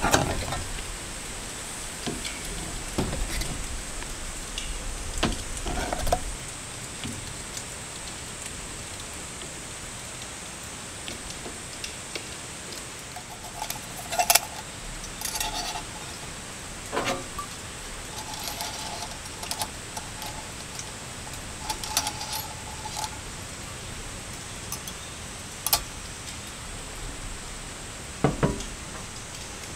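Metal camping mugs clinking and knocking against the metal S-hooks and rack as they are hung up, with scattered sharp clinks and a few short metallic rings, over a steady hiss of rain and wind on the tent.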